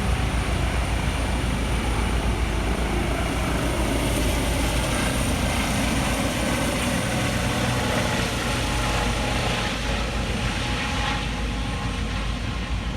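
Medevac helicopter running, its rotor beating in a rapid, even low pulse, easing off slightly near the end.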